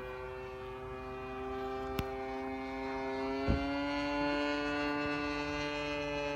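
Zenoah G20 single-cylinder two-stroke petrol engine of a radio-controlled model plane running steadily, its pitch rising slightly. A click about two seconds in and a short knock about three and a half seconds in.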